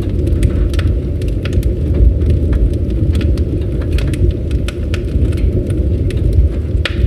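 Campfire burning: a steady low roar of flames with frequent irregular crackles and pops of burning wood.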